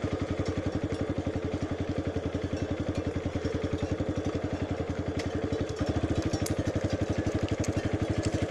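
Motorcycle engine running at low revs, rolling slowly: an even pulsing putter at about ten beats a second, which gets a little louder about six seconds in as the throttle opens slightly.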